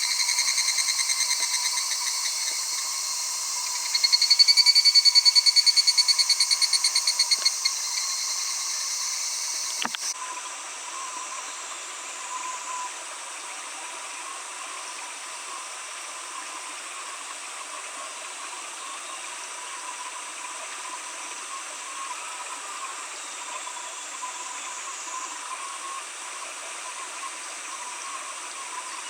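Male higurashi cicada (Tanna japonensis) calling: a rapid, evenly pulsed trill that swells loudest about four seconds in, then slows and fades. It stops abruptly about ten seconds in, leaving only a faint steady hiss.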